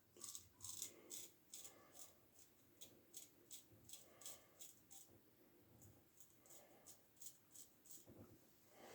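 Faint, quick scraping strokes of a Gem push-button single-edge safety razor cutting stubble, going against the grain on the upper lip.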